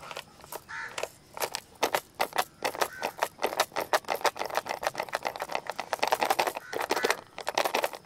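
Plastic pencil box shaken in the hands, the pencils and parts inside rattling in quick, irregular clicks that grow denser and louder in the second half.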